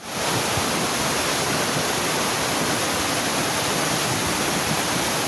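A flash-flood torrent of muddy floodwater rushing down a street, a steady, even rush of water.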